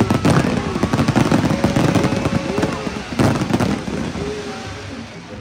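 Fireworks going off: a rapid crackle of many small bangs, with a dense burst about three seconds in, thinning out near the end.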